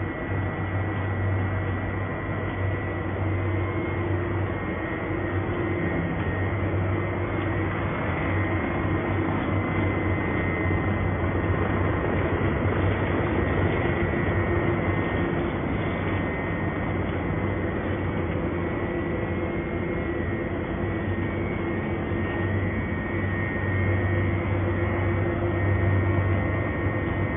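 Carpet-mat backing production machinery running steadily: a constant low hum with a thin high whine over a noisy rush.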